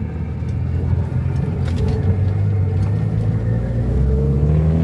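1971 Ford Corcel's four-cylinder engine running as the car drives, its note climbing over the last couple of seconds as it speeds up.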